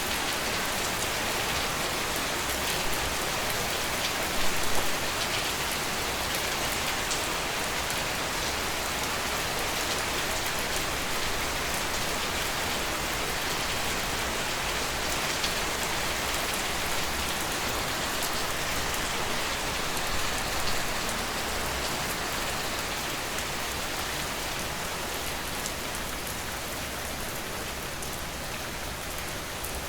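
Steady rain falling on a surface, a dense even patter of drops, with a couple of brief louder bumps of drops.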